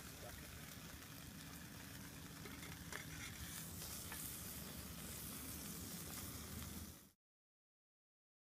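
Steak sizzling in molten lava in a steel trough. The sound cuts off suddenly about seven seconds in.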